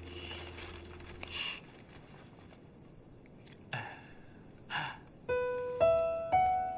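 Background score: a steady, thin high tone with a few soft rustles, then from about five seconds in a series of single struck notes, each left to ring, building into a melody.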